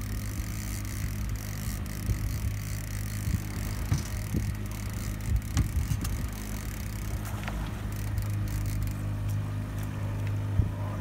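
Boat's outboard motor running steadily, a low even hum, with a few short low thumps over it.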